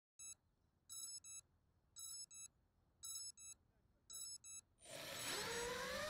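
Short electronic beeps, one and then four pairs about a second apart, then the small quadcopter's motors spin up with a rising whine that settles into a steady hum near the end.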